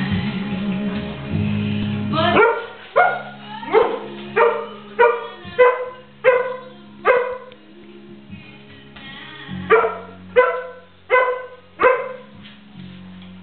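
Irish Setter puppy barking: a run of about eight sharp barks, each falling in pitch, roughly one and a half a second, then a short pause and four more. Music plays underneath.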